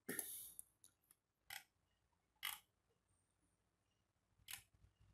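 Near silence broken by four short computer mouse clicks, the first a little longer.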